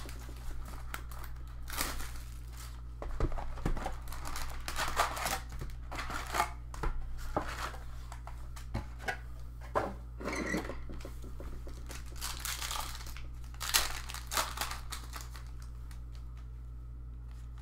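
Packs of 2017 Panini Contenders Football cards being opened: their wrappers tear and crinkle in irregular bursts, and the rustling dies away near the end. A steady low hum runs underneath.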